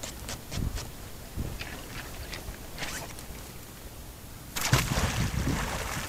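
Rope and magnet being handled and thrown for magnet fishing: a few light clicks and rustles, then about four and a half seconds in a sudden loud rush of noise that carries on to the end.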